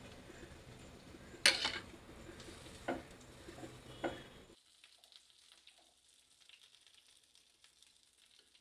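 Mustard oil sizzling in a pan as capsicum rings and onion fry, with three sharp clinks of a spoon against the pan. The sizzle cuts off suddenly about halfway through, leaving near silence.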